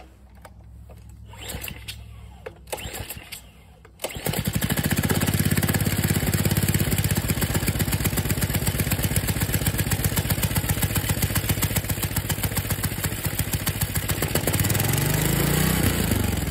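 Tecumseh Snow King single-cylinder engine pull-started with a couple of tugs on the recoil cord; it catches about four seconds in and runs steadily, speeding up near the end. It keeps running despite liquid gallium having been put through its carburetor and on its aluminum head bolts.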